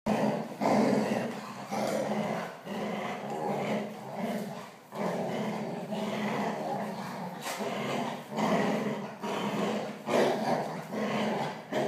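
Labradors growling in repeated bouts, each about a second long, as they pull against each other in a playful tug-of-war over something held between their jaws.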